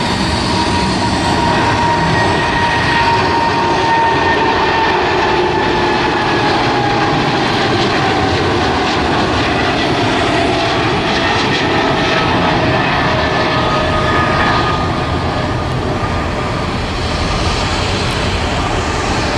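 Boeing 777-300ER's two GE90-115B turbofan engines at takeoff thrust: a steady, loud roar with whining tones that slowly fall in pitch as the jet lifts off and climbs away.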